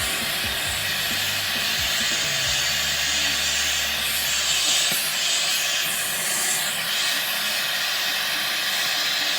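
Gas torch burning with a steady hiss as it melts the casting metal in the crucible of a centrifugal casting machine.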